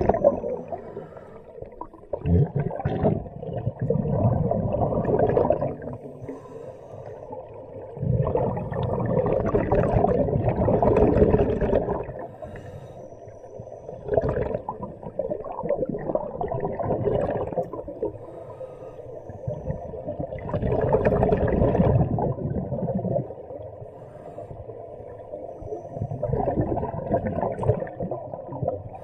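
Scuba diver breathing underwater through a regulator: bubbling surges of exhaled air every five or six seconds, each lasting a few seconds, with quieter gaps for the inhale between.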